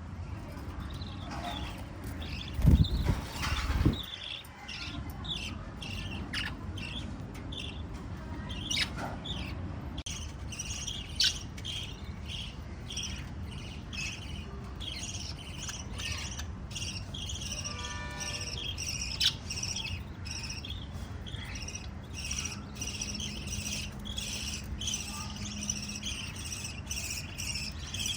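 Small pet parrots chirping, a quick run of short high calls that keeps going, with one longer call near the middle. A few loud low thumps come about three seconds in.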